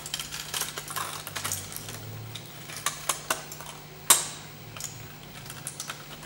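Crumpled aluminium foil crinkling and crackling as hands squeeze and bend it: irregular short crackles, with one sharper, louder crack about four seconds in.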